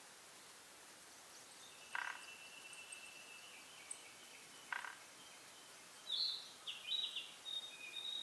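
Wild birds calling: a short harsh call repeats every few seconds, while thin whistled notes and high chirps from other birds run between the calls, busiest in the second half.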